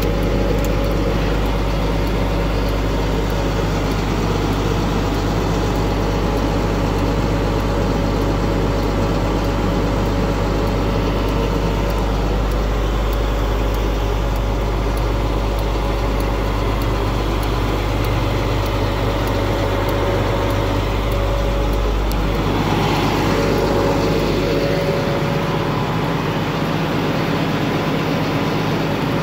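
Tow truck's engine running with a steady low hum. About 22 seconds in, the deepest part of the hum drops away and the sound changes.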